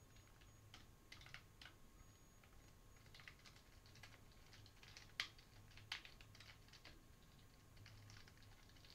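Faint, irregular typing on a computer keyboard, with two sharper, louder key clicks about five and six seconds in.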